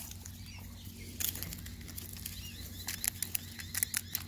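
Hens pecking biscuit pieces out of a hand: an irregular run of quick, sharp beak taps and clicks.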